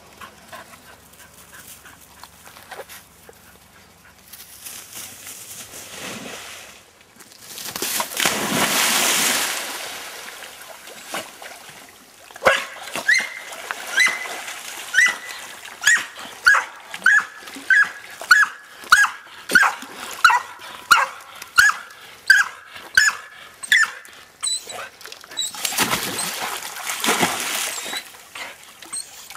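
A dog barking over and over, about two barks a second for some ten seconds, between water splashes as a springer spaniel and a collie plunge and swim in a river. There is a loud splash about eight seconds in and another near the end.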